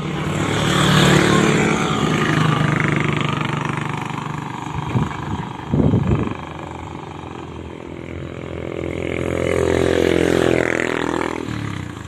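Motor vehicles passing close by on a road, two passes, swelling about a second in and again near the end; the later pass is a motorcycle, its engine note bending as it goes by. Two short knocks come in between.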